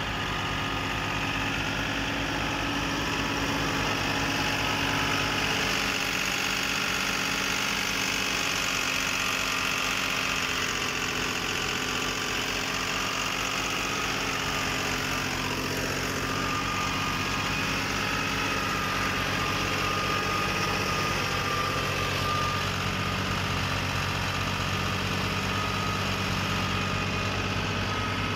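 Fiat 480 tractor's three-cylinder diesel engine running steadily, driving a wheat thresher.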